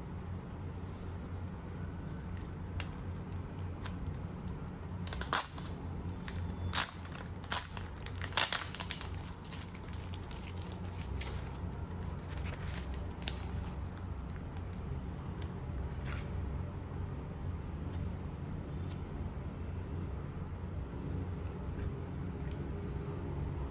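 Blu-ray packaging being handled and opened: scattered crisp plastic clicks and crinkles, with a cluster of louder snaps about five to nine seconds in, over a steady low hum.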